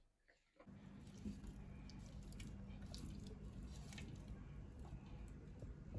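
Faint steady low hum with light scattered clicks and handling noises, starting about half a second in after near silence.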